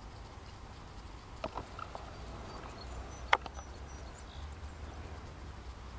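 Quiet open-air ambience: a steady low rumble, a few faint clicks about a second and a half in, and one sharper click about three seconds in.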